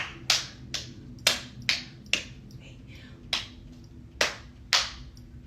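Hand claps, sharp and separate, about two a second in short groups of two or three, keeping count for a dance routine.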